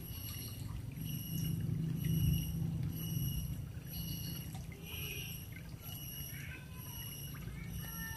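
Water running out of a stone culvert into a pool, a low steady rush. A faint high tone pulses on and off about twice a second over it.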